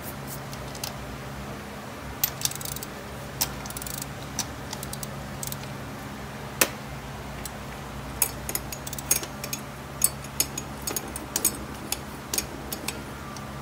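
Metal tool clicks and clinks as the disc rotor's lockring is threaded onto the hub and tightened with a Park Tool torque wrench: scattered sharp clicks, coming more often in the second half, over a steady low hum.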